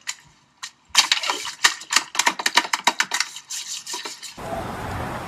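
Ice cubes clattering and crunching in a quick, dense run of sharp clicks as a body moves across them on the floor. Near the end this cuts off and a steady rushing noise takes over.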